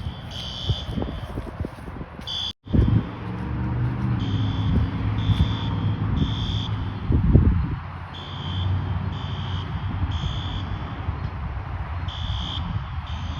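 Fire alarm sounding for a fire drill: high-pitched electronic beeps pulsing on and off in repeated groups, over a steady low rumble that cuts out briefly about two and a half seconds in.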